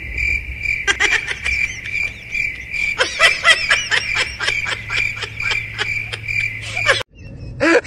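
Crickets chirping in a steady, evenly pulsing high trill. From about three seconds in comes a quick run of short, high chattering calls, a cat chattering at something outside the window. Both cut off suddenly about seven seconds in.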